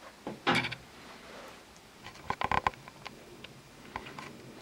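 Scattered handling noises: a short rustling burst about half a second in, a quick run of clicks and knocks around two and a half seconds in, and a single click near the end.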